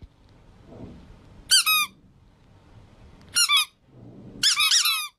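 Squeaky plush chick toy squeezed in three quick bursts of high-pitched squeaks; the last burst, near the end, is the longest.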